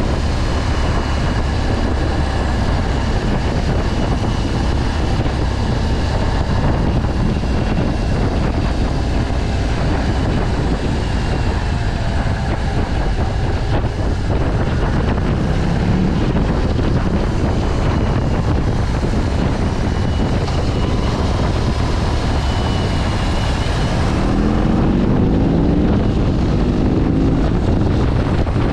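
Heavy wind buffeting on a helmet-mounted action camera's built-in microphone while riding a BMW R18, whose 1,800 cc boxer twin runs underneath. Near the end the engine note rises in pitch as the bike accelerates.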